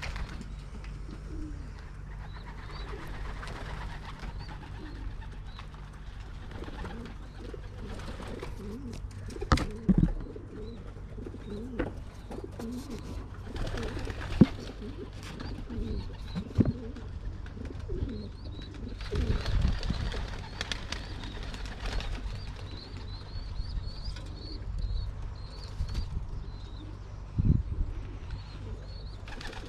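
Racing pigeons cooing in a loft, many short low calls overlapping, with a few sharp knocks and a steady low hum beneath.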